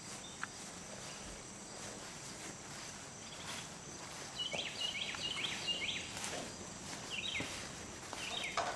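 Steady chorus of crickets and other insects in a summer field, with a bird chirping in quick runs of short calls from about halfway through.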